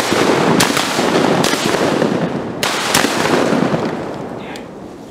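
A volley of shotgun shots from several duck hunters firing at once, about four sharp reports in the first three seconds over a loud rushing noise that dies away near the end.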